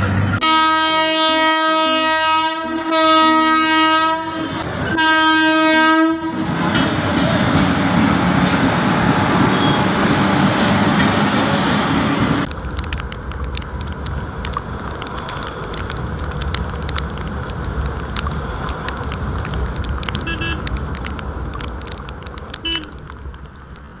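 A loud horn blasts three times, one single steady pitch each time: a long blast, a shorter one, then a third. A steady rushing noise follows and drops suddenly to a quieter noise about halfway through.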